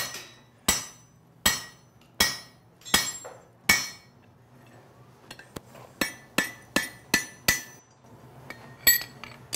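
Hammer blows on a steel drift driven through a hole in a red-hot bar on an anvil, ringing metal on metal: six steady blows about three-quarters of a second apart, a short pause, then a quicker run of five lighter strikes and one more blow near the end. The drift is being beaten through to open the punched hole wider.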